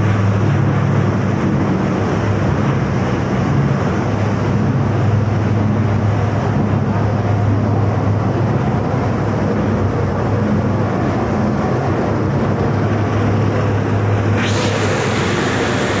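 Plastic-film recycling washing line running: steady machinery noise over a strong low hum. Near the end a brighter, hissier layer of noise comes in suddenly.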